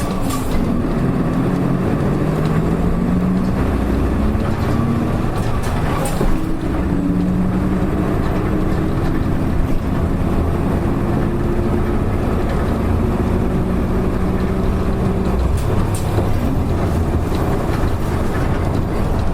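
Nissan Diesel PKG-RA274MAN city bus heard from inside the cabin while driving, its engine and drivetrain rumbling with a whine that rises slowly in pitch as the bus gathers speed, then levels off about 15 seconds in; the bus is known for an abnormal running noise. A couple of brief knocks, about 6 and 16 seconds in.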